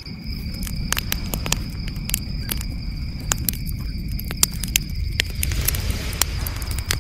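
Wood-and-sawdust fire crackling, with frequent sharp irregular pops and snaps over a low rumble of the burning, while crickets trill steadily in the background.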